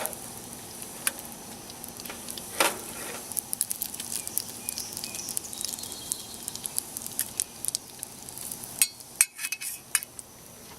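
Pre-cooked bacon frying on low heat in a mess kit pan: a steady sizzle with scattered sharp pops and clinks.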